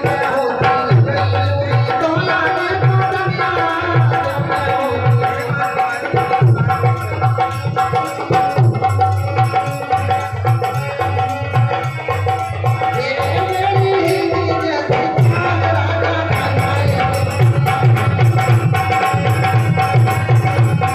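Live music played through a loudspeaker system: a steady, loud drum rhythm under a sustained keyboard melody.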